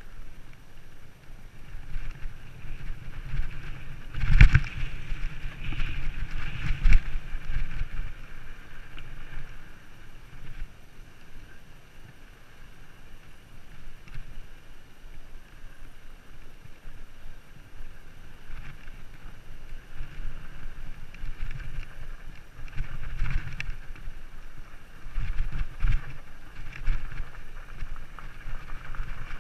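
Wind buffeting the microphone and a bicycle's tyres rolling and rattling over a rough dirt trail, with two sharp jolts from bumps a few seconds in.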